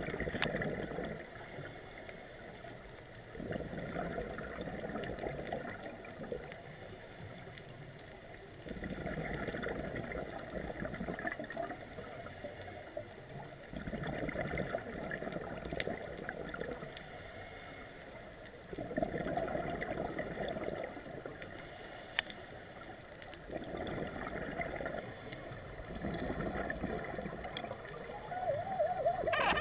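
Scuba diver breathing through a regulator underwater: bubbly bursts of exhaled air about every five seconds, each lasting two to three seconds, with quieter stretches between.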